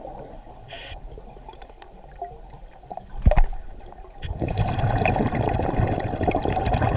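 Underwater sound around a diver: a quiet stretch broken by one sharp knock about three seconds in, then a rumble of the diver's exhaled bubbles from about four seconds in.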